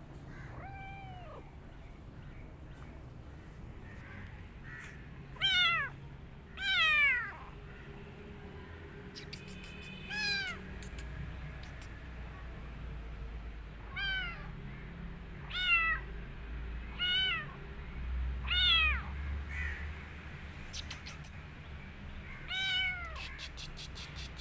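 A young kitten meowing repeatedly: about nine high, thin meows spaced a second or more apart, each rising then falling in pitch. The two meows about five to seven seconds in are the loudest.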